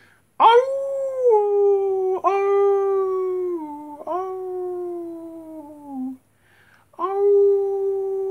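Wolves howling: long, slowly falling howls, three following one another almost without a break, then after a short pause another long howl begins near the end.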